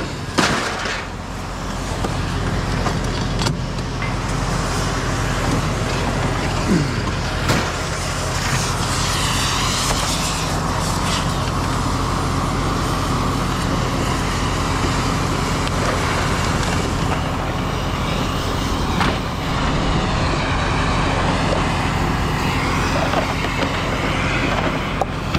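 Motor vehicle running steadily, a constant engine drone with road and traffic noise and a few scattered clicks.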